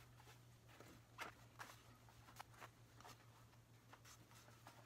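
Faint, scattered soft clicks and rubs of a new 26x1.75 whitewall bicycle tire being worked onto its steel rim by hand, over a low steady hum.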